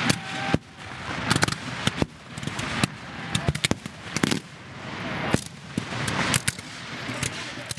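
Black-powder rifle muskets firing blanks in a ragged, continuous fusillade: many sharp shots at irregular intervals, some coming close together.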